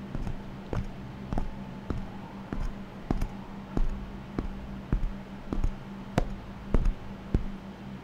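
AI-generated sound effect (ElevenLabs) of a person in boots walking on a wooden floor: evenly paced footsteps, a little under two a second, over a low steady hum.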